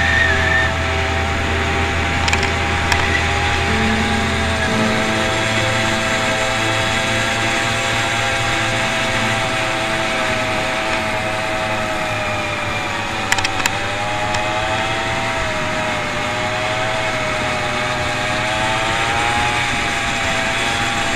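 Small gas engine of a converted Razor scooter running at high revs while riding, its pitch wavering up and down. The pitch dips and recovers about thirteen seconds in.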